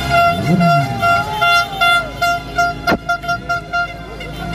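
A car horn honking in repeated short blasts that come faster and faster, with shouts gliding up and down around it. A single sharp crack comes about three seconds in.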